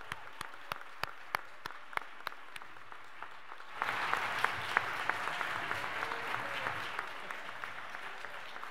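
Audience applauding: scattered single claps at first, swelling into fuller applause about four seconds in, then slowly thinning out.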